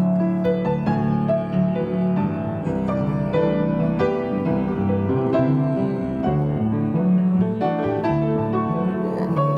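Piano music, many quick notes in a dense, continuous passage.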